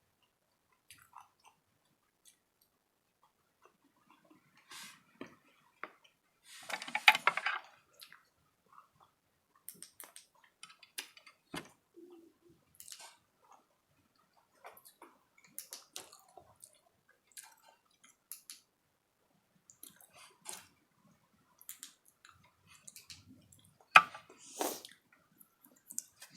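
A person chewing food close to the microphone, with wet mouth clicks and smacks scattered throughout. A louder noisy burst lasting over a second comes about seven seconds in, and a sharp loud click near the end.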